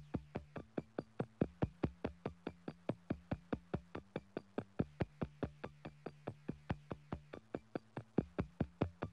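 Electronic music: an even, fast pulse of clicky percussive hits, about five a second, over low sustained tones that shift pitch every few seconds.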